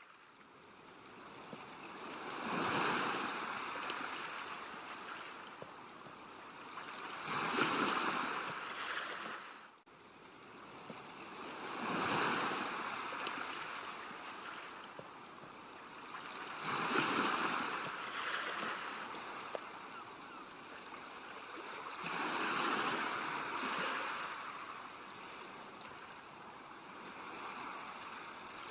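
Calm sea waves breaking and washing on a shore, swelling and ebbing roughly every five seconds. The sound drops out for an instant about ten seconds in.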